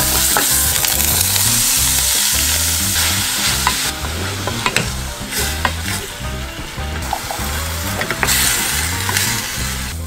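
Minced garlic and then ground beef sizzling in oil in a stainless steel frying pan, stirred with a wooden spoon that clicks and scrapes against the pan. The sizzle is loud at first, softer around the middle and loud again near the end.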